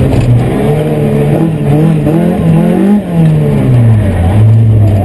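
Opel Astra GSi 16V rally car's 2.0-litre 16-valve four-cylinder, heard from inside the cabin, pulling hard with its note rising. About three seconds in the revs drop sharply as the driver lifts, and the engine then runs at a steady lower pitch.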